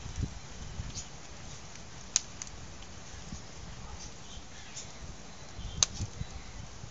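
Wood fire in a steel fire ring crackling, with sharp pops about two seconds in and again near six seconds, over a steady low rumble.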